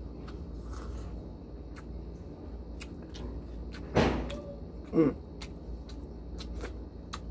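Eating by hand with the mouth close to the microphone: chewing and lip-smacking clicks over a low steady hum, with two louder short mouth or throat sounds about four and five seconds in, the second a brief pitched murmur.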